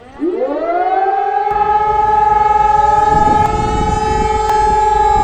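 Elektror L141 air-raid siren starting up: its tone winds up from a low pitch to a steady high pitch within about a second, then holds it.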